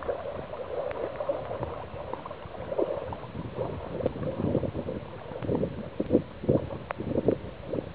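Water lapping and gurgling close to the microphone: a continuous, irregular run of small splashes.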